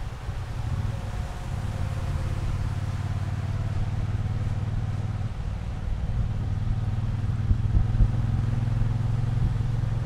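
Triumph Bonneville T120's parallel-twin engine running steadily while the motorcycle is ridden, its note getting a little louder about six seconds in.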